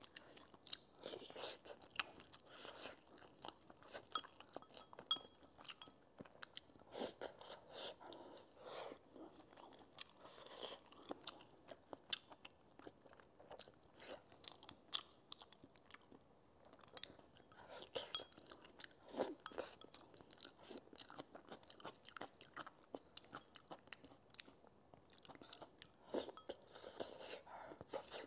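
Quiet, close-miked chewing of braised chicken, with many small irregular clicks and soft mouth noises all the way through.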